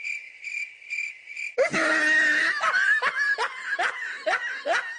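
A few high, evenly repeated chirps, then from about a second and a half in a burst of snickering laughter in quick, repeated bursts.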